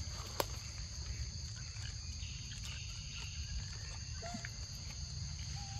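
Insects calling in a steady, high, even drone, over a low rumble, with a sharp click about half a second in and a couple of short chirps near the end.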